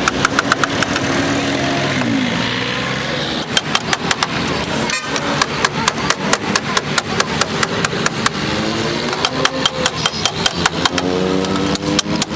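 A small engine running with a rapid, regular knocking of about five beats a second; its pitch rises and falls at times.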